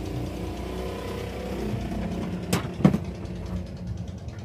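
A steady engine-like drone runs throughout, with two sharp knocks about half a second apart in the middle.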